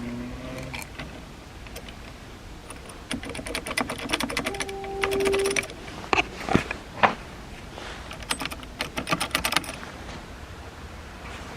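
Two runs of rapid clicking, each a couple of seconds long, with a brief steady whine in the first run and three sharp knocks between the runs.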